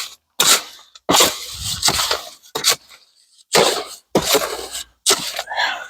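Wet concrete mix being handled and poured from its mixing container into the pad form: a run of about six short, rough scraping and sloshing noises with brief gaps between them.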